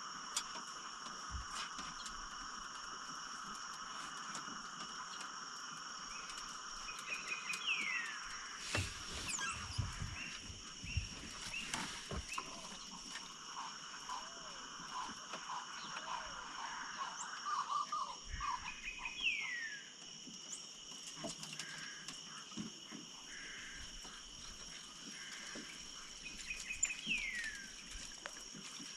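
Riverside chorus of insects and frogs, with steady high-pitched trilling throughout. A quick downward-sweeping call comes three times, and a run of short croaking notes comes midway. A few soft knocks and thuds come around ten seconds in.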